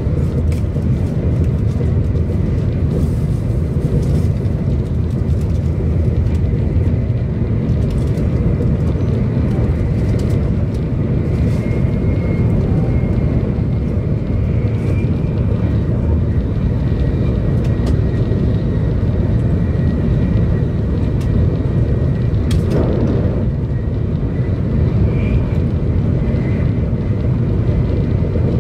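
A 700 series Shinkansen running at speed, heard from inside the passenger cabin: a steady, loud low rumble of wheels on the track and air along the body, with a faint steady high whine. A brief rush passes about three-quarters of the way through.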